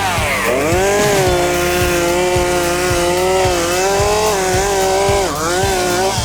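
Gas chainsaw running at full throttle, its pitch held mostly steady as it cuts through a limb. The pitch sags briefly just after the start and again near the end.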